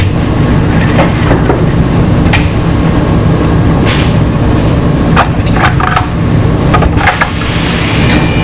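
Pneumatic bagging machine cycling: sharp clacks and knocks from its actuators come at irregular moments over a loud, steady low machine hum.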